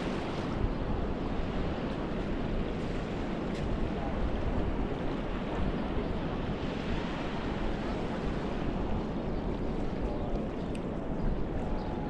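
Steady wind buffeting the microphone over small waves lapping at the water's edge of a sandy shore.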